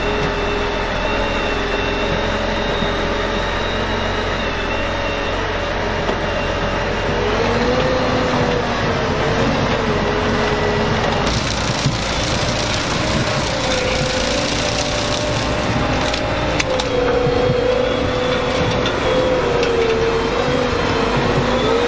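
Ropa Tiger 6S self-propelled six-row sugar beet harvester running under load: a steady diesel drone with a wavering whine over it, turning harsher and noisier about halfway through.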